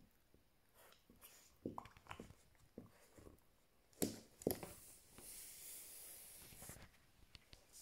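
Chesapeake Bay Retriever puppy gnawing a rubber chew toy: faint scattered clicks and knocks, with two sharper knocks about four seconds in, then a soft hiss.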